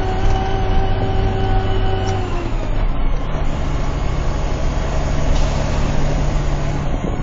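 Concrete mixer truck's diesel engine running under way with heavy road noise, heard from inside the cab. About two and a half seconds in the engine note changes and settles at a higher steady pitch.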